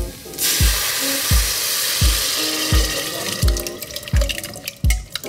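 Mashed canned tomatoes poured into a saucepan of chopped garlic frying in olive oil. About half a second in they set off a loud hissing sizzle that dies down by about three seconds. Background music with a steady beat plays throughout.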